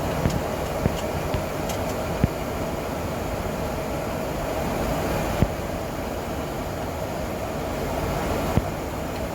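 Steady rushing cockpit noise of a Boeing 737 flight deck in flight, airflow and engine noise with a humming band, broken by a few short, sharp clicks.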